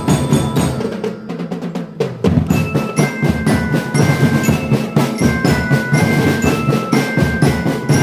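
Marching drum band playing live: snare and bass drums beating steadily under a bell lyre carrying the melody in high, bell-like notes. Around a second in the band drops to a softer passage for about a second, then comes back in at full strength.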